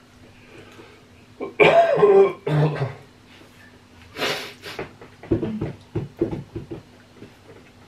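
A person coughs a couple of times, loud and throaty, followed by a short breathy burst. Then a metal fork clicks against a ceramic plate several times in quick succession.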